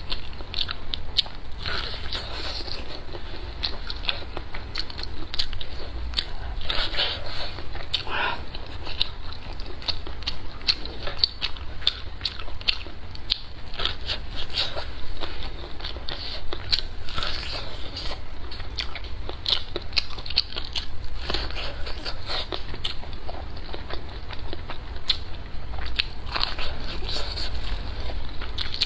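Close-miked biting and chewing of boiled sweet corn on the cob: kernels crunched off the cob, a steady run of many small crisp clicks and crackles.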